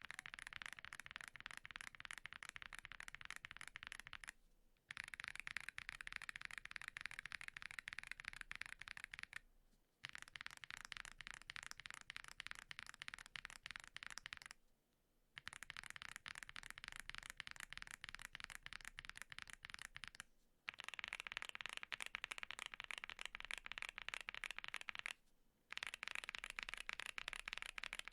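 Fast typing on a custom mechanical keyboard fitted with Rococo tactile switches (polycarbonate housings, lubed from the factory), a dense clatter of keystrokes in bursts of about five seconds with short pauses between them. For the first twenty seconds the board is a Mammoth75. After that it is a QK65, whose keystrokes sound brighter.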